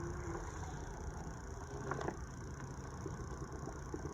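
Hands digging and sifting through loose potting soil in a container while searching for potatoes, with a few soft clicks and rustles about two seconds in, over a steady low background rumble.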